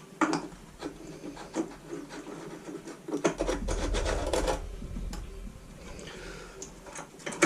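Clicks and knocks of small engine parts being handled and fitted on a workbench, with a denser rattling rasp lasting about a second and a half from about three seconds in.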